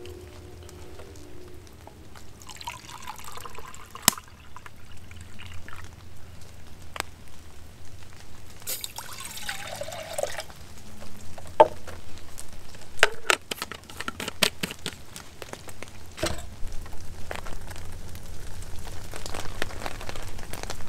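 Liquid being poured in two short spells, a few seconds apart, among scattered clicks and knocks, over a low steady hum.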